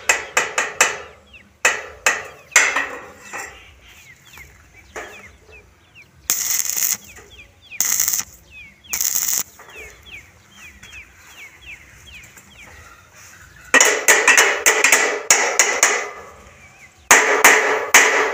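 Hammer blows on steel come in quick runs of sharp, ringing strikes at the start and again from about 14 seconds in. In the middle there are three short bursts of crackling hiss from a stick-welding arc striking tacks. Small birds chirp in the background.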